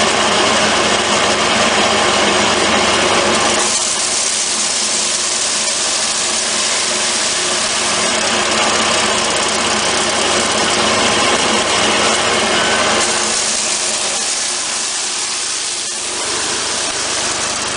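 Hammer mill threshing wheat, driven by a Kubota engine, running steadily with a constant mechanical hum. A higher hiss over it eases about four seconds in and returns about thirteen seconds in.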